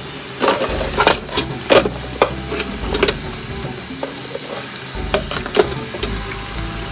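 Dishes being washed by hand in a sink: a steady hiss of running tap water, with repeated sharp clinks and clatters of dishes knocking together.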